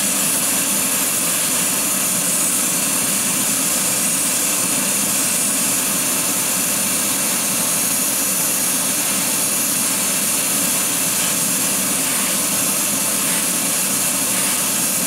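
Steady rushing of a hobby spray booth's exhaust fan, with the hiss of a Badger airbrush spraying clear coat at about 30–35 psi.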